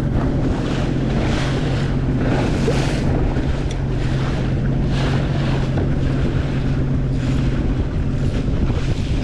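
Sea-Doo jet ski engine running at a steady speed, a constant low hum, with wind buffeting the microphone in gusts about once a second.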